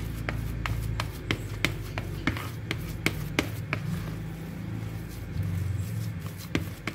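Plastic rice paddle knocking and scraping against a plastic basin as damp fishing-bait dough is mashed: sharp clicks about three a second that thin out after about four seconds, with one more near the end, over a low steady hum.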